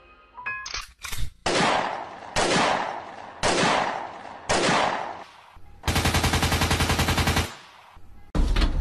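Gunfire sound effect: four single loud shots about a second apart, each with a ringing tail, followed by a rapid machine-gun burst lasting about a second and a half.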